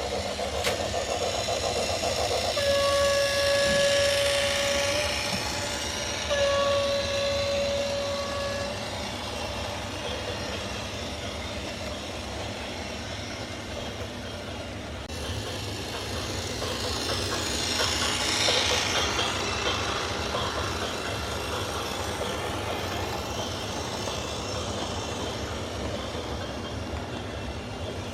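Two long blasts of a single-pitch horn a few seconds in, over a steady low rumble, with a broad noisy swell later on.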